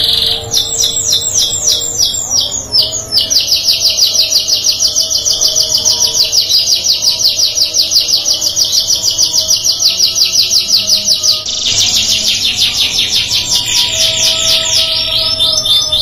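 Domestic canary singing: fast rolling trills of one high note repeated many times a second. The phrase changes to a different roll about three-quarters of the way through.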